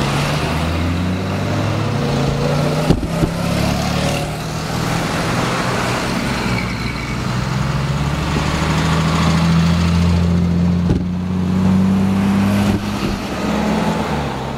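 Triumph TR6 straight-six engines running at low speed as the cars pass close by, a low, steady exhaust note. The pitch climbs from about eight to twelve seconds in as a car accelerates away.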